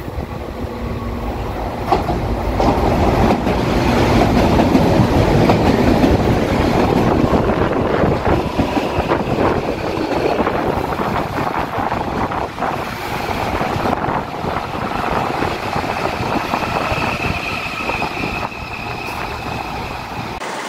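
CPTM Série 8000 electric multiple unit, built by CAF, pulling into the platform. Its wheels click over the rail joints, and the noise swells as the cars pass close by, then eases as the train slows to a stop, with a faint high brake squeal near the end.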